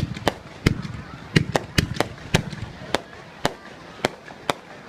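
Fireworks going off: a run of sharp bangs at uneven intervals, several a second at first, thinning out to single bangs after about three seconds.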